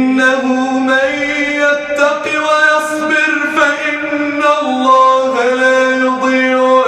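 A man chanting a Quranic recitation in a melodic style, holding long notes and moving slowly between pitches without pause.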